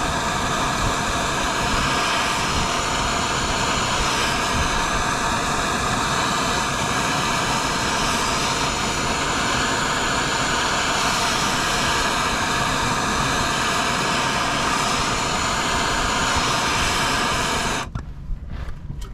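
MAP gas torch burning with a steady, even hiss, heating the ball-joint flange on a Ford Super Duty front differential to loosen the pressed-in ball joint. The torch cuts off abruptly near the end.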